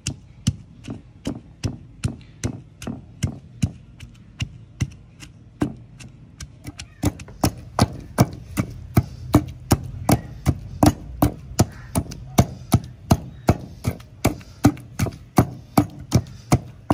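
Wooden pestle pounding chopped onion and green chilli in a stone mortar, a steady run of thuds about three strokes a second as the onion is crushed to a coarse paste.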